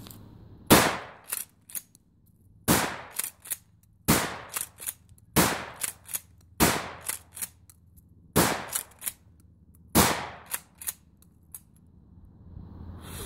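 Mossberg 500 pump-action shotgun fired seven times in quick succession, a shot every one to two seconds, with two fainter sharp clacks after each shot as the pump is worked.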